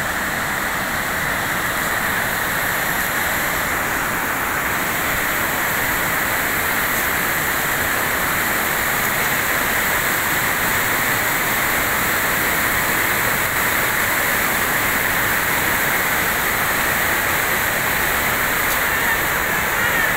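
Torrent of brown floodwater rushing over rocks: a steady, loud rushing of churning water.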